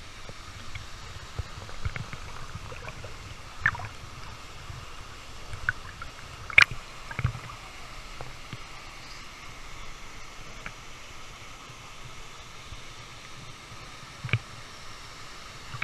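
Water gurgling and sloshing over a steady rush, broken by a few short sharp splashes or knocks, the loudest about six and a half seconds in.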